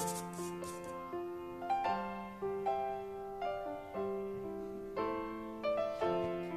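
Background piano music, a gentle melody of single notes over sustained chords. In the first moment a brief scratchy rubbing is heard: flour being pushed through a fine metal sieve with a spoon.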